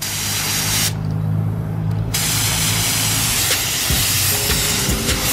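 Gravity-feed spray gun hissing as compressed air sprays paint, in two bursts: a short one, a break about a second in, then a longer one from about two seconds in. A low hum runs under the first three seconds.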